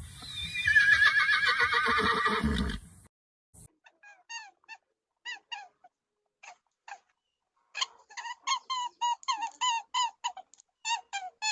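A whinny-like animal call lasting about three seconds, then after a short pause a run of short, sharp yelping calls, sparse at first and then coming about four a second.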